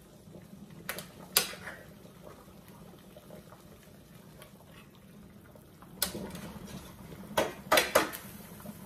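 Water at a rolling boil bubbling in a stainless-steel stockpot, with sharp metal clinks of a serving spoon against the pot and a steel plate as beef shank is lowered in: two about a second in, then several more in the last three seconds.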